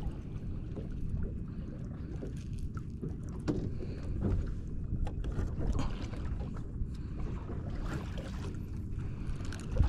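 Steady low rumble of wind and water around a small boat, with a few faint clicks and knocks.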